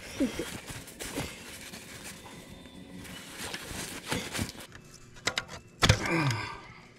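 Scattered light clicks and knocks of hands working with parts and tools, with a quick run of sharp clicks about five to six seconds in. A few brief murmured vocal sounds come between them.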